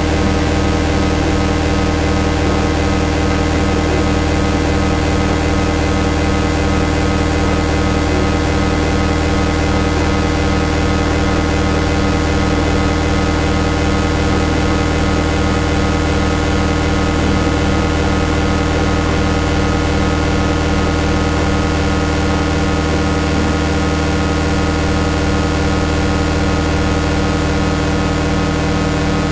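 Electronic drone accompanying an oscilloscope animation: a loud, steady hum of many held tones from low to high, with a hiss over it and no break or change.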